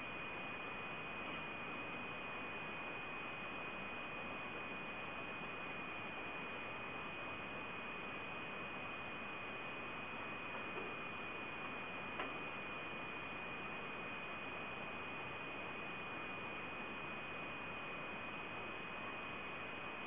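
Steady hiss with a constant high-pitched whine, with one faint click about twelve seconds in.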